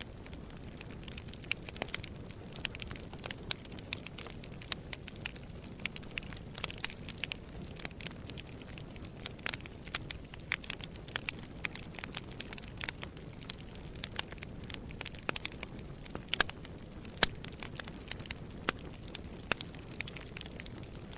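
Wood fire burning in a fireplace: a steady low hiss and rumble with frequent irregular crackles and pops, a few louder pops near the end.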